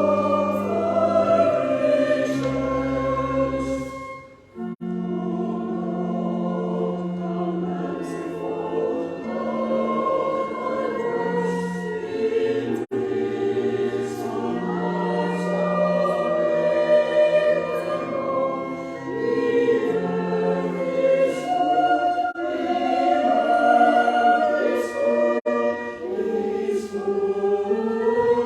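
Many voices singing a hymn together over steady, held low accompaniment notes, with a brief break between lines about four seconds in.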